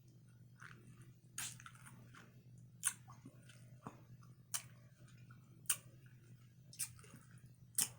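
A person chewing a mouthful of pineapple close to the microphone, with short wet mouth clicks about once a second.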